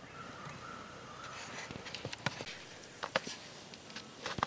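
Scattered sharp snaps and cracks of dry wood: a handful at irregular intervals, a couple close together about three seconds in, over faint outdoor background.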